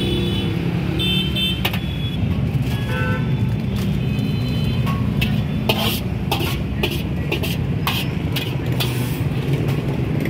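Stir-frying noodles in a wok over a gas burner: a steady low rumble from the burner and street, with a run of sharp metallic clatters against the wok in the second half.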